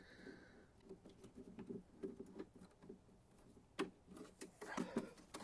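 Faint scattered ticks and rustling of hands working a mounting bolt into the bracket inside a motorcycle's hard saddlebag, with a sharper click nearly four seconds in and a quick run of clicks near the end.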